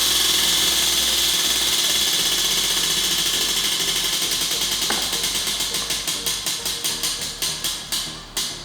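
Spinning prize wheel, its pointer clicking against the pegs: a fast rattle that slows into separate, spaced-out ticks as the wheel coasts to a stop.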